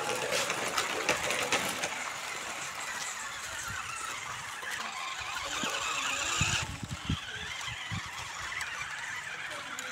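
Small electric motor and gearbox of a toy RC rock crawler whining as it tows a loaded trailer over gravel and dirt. The whine cuts off about six and a half seconds in, followed by a few low thumps.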